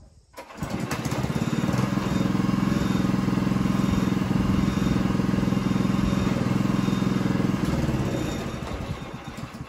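Engine of a Norwood HD36 portable band sawmill, coming on suddenly about half a second in, running steadily, then dying away over the last couple of seconds.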